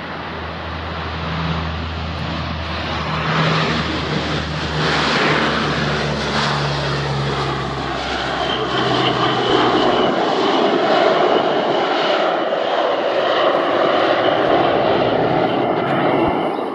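NOAA WP-3D Orion's four Allison T56 turboprops at takeoff power during departure. A low propeller hum fades out about two-thirds of the way through while the broad engine noise grows louder, with a steady high whine in the second half, and the sound cuts off suddenly at the end.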